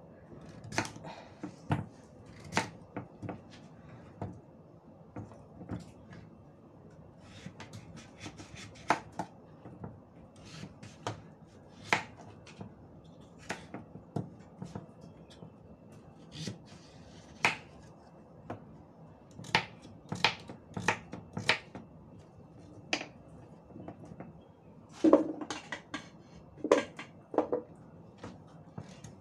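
Kitchen knife slicing through raw pumpkin and knocking on a wooden cutting board: irregular sharp taps of the blade, a few a second at most, with a cluster of heavier knocks near the end.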